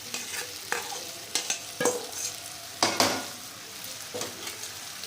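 Chicken masala frying and sizzling in a pan while a spoon stirs and scrapes through it, knocking against the pan at irregular moments, the loudest knock about three seconds in.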